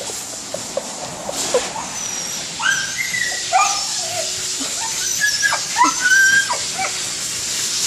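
Siberian husky whining and yelping in distress while being blow-dried: a run of short, high cries that bend up and down in pitch, starting a few seconds in, over the steady hiss of a hair dryer.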